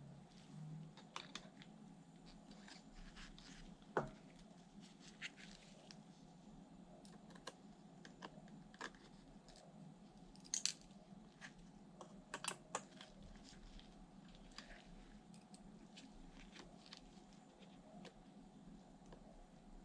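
Faint, scattered small clicks and taps of hands handling laptop parts during an SSD installation, over a low steady hum, with sharper clicks about 4, 10 and 12 seconds in.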